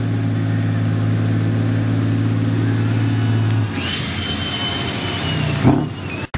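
Tatra trial truck's diesel engine running hard at steady revs. About two-thirds through, the engine note gives way to a loud hiss with a high whistle, and a short sharp knock comes near the end.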